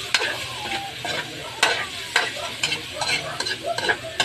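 Chicken pieces sizzling in a wok while a spatula stirs them, knocking and scraping against the pan several times.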